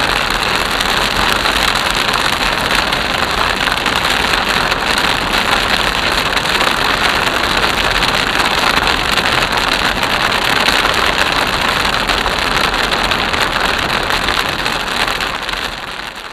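Steady rain hitting a car's roof and windshield, mixed with the hiss of tyres on a wet road, heard from inside the moving car's cabin. The sound fades down near the end.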